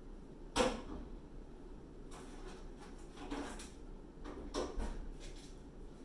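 Household handling noises as food is fetched: a sharp knock about half a second in, then several short scrapes and rustles, like a cupboard or drawer and things being moved about.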